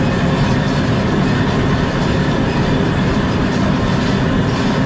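Steady, loud rattling clatter and rolling noise from a moving vehicle.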